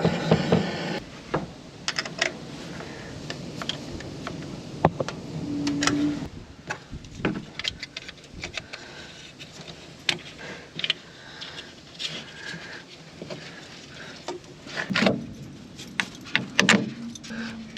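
Irregular light metallic clicks, clinks and knocks of tools and parts being handled during hands-on work on the compressor's starter wiring. A steady motor hum cuts off about a second in.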